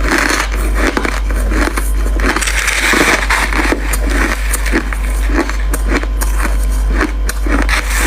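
Crushed ice being chewed close to the mouth: a dense run of crisp crunches and crackles, about two chewing strokes a second, over a steady low hum.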